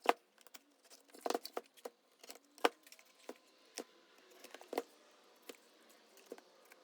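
Irregular clicks, knocks and light metallic clinks of tools and parts being handled while a 48 V e-bike lithium-ion battery pack is taken apart, the sharpest knock right at the start and another a little over halfway through.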